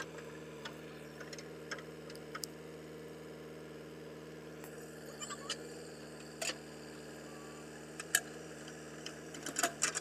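JCB 3DX backhoe loader's diesel engine running at a steady speed while the backhoe digs, with scattered sharp clicks and knocks from the bucket and soil, bunched near the end.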